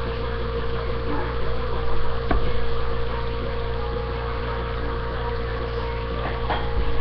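Steady hum and hiss with a constant mid-pitched tone, and a single sharp click about two seconds in.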